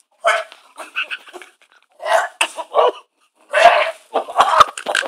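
A man retching, a series of short, loud heaves coming about every half second to second.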